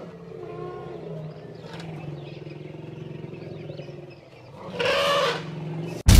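An elephant trumpets once, a loud call lasting under a second about five seconds in, over a low steady rumble. A sudden loud boom cuts in right at the end.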